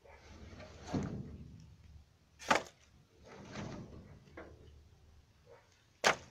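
Cut tree branches being thrown onto a stacked pile: rustling and scraping of wood, with two sharp clatters, one about two and a half seconds in and one near the end.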